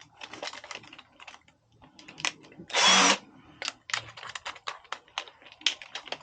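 An electric drill fitted with a 10mm bit runs in one short burst of about half a second, about three seconds in, while enlarging a pilot hole in a thin aluminium curtain rail. Scattered clicks and knocks of the drill and rail being handled come before and after it.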